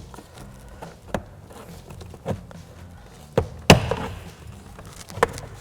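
Plastic trim tool prying a door-panel switch cover loose: a series of sharp plastic clicks and knocks about a second apart. The loudest snap comes past the middle, followed by a brief scraping crackle as the cover comes free.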